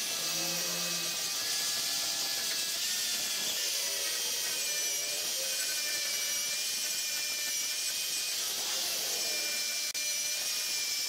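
Angle grinder running and grinding heavy rust off a steel leaf spring: a steady high whine that shifts slightly in pitch as the disc is pressed along the metal. It drops out briefly near the end.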